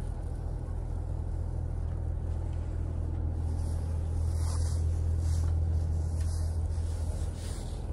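Diesel railcar's engine running with a steady low rumble, heard from inside the carriage. It grows a little louder about halfway through.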